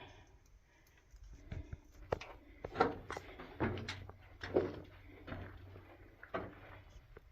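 Footsteps on the floor of a mine tunnel: a string of short, uneven knocks and scuffs, about one step a second, starting about a second in.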